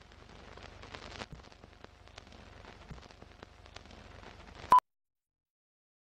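Film-leader countdown sound effect: faint crackle and scattered pops of old film over a low hum, ending about three quarters of the way through in a short, loud single-pitch beep, the sync beep of the countdown, then cutting to dead silence.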